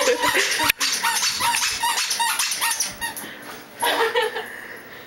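Rubber squeaky dog toy squeezed over and over, a quick string of short squeaks about three a second that stops about three seconds in.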